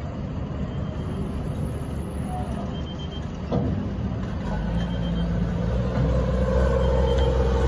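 Stryker eight-wheeled armoured vehicle's diesel engine running as it drives off a ship's ramp, growing louder as it comes closer. A single knock about three and a half seconds in.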